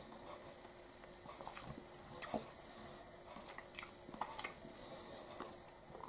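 Quiet mouth sounds of a person eating a spoonful of soft ice cream mixed with cake: chewing, with scattered small lip and tongue clicks.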